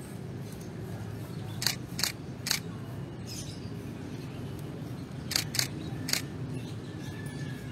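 Sharp clinks and knocks from hand work dismantling the eaves of a clay-tiled roof, three close together about a second and a half in and three more about five seconds in, over a steady low outdoor rumble.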